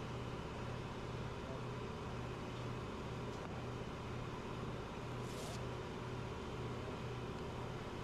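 Steady low machinery hum with a slow, regular pulse, with one short hiss about five seconds in.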